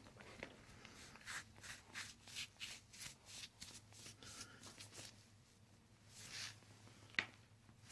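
Faint rustling and shuffling handling sounds, a quick series of short swishes, then a single sharp click about seven seconds in.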